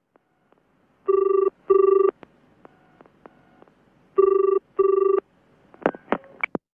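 British-style telephone double ring: two 'brr-brr' rings about three seconds apart, then a few clicks as the call is answered.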